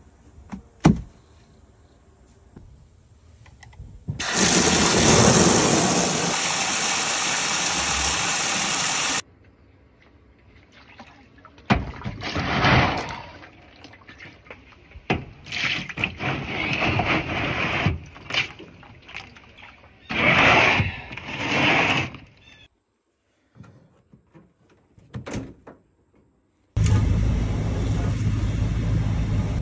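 Water running hard and steadily for about five seconds, then a run of irregular knocks, scrapes and rustles of handling work, and near the end the steady low rumble of a pickup truck driving, heard from inside the cab.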